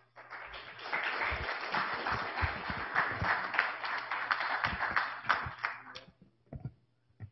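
Audience applauding, building over the first second and dying away about six seconds in, followed by a couple of soft knocks near the end.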